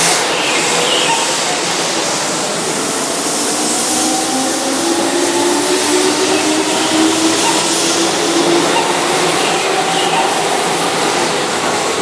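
Keihan 2600-series electric train running along a station platform: a steady rumble of wheels on rail, with a motor whine that climbs slowly in pitch as the train gathers speed.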